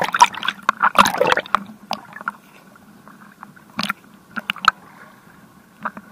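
Seawater splashing and sloshing against a camera held at the water surface, loudest in the first two seconds, then lighter lapping with a few sharp knocks, over a faint steady hum.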